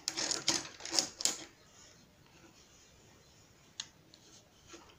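Hands folding and pinning percale cotton fabric: a quick run of rustles and clicks over the first second and a half, then quiet with a single faint click near the end.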